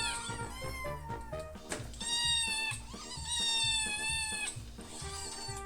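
Kittens meowing: several high, drawn-out calls, the longest about three seconds in, over background music with a steady beat.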